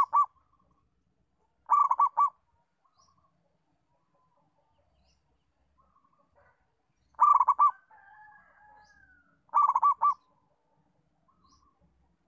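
Zebra dove (perkutut) cooing in short phrases of three or four rapid staccato notes: one ending at the very start, one about two seconds in, then after a long pause two more near seven and ten seconds in.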